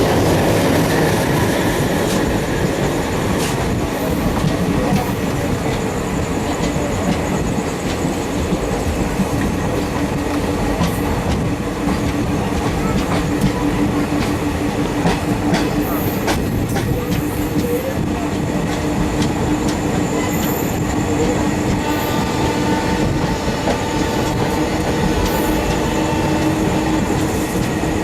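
Express train's passenger coaches rolling past on the rails: a steady loud rumble with wheels clicking over rail joints and now and then a faint squeal.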